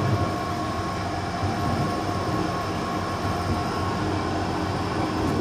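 Steady running noise of a moving passenger coach heard from inside, a rumble and hum with a faint steady whine, as the train rolls over a set of points.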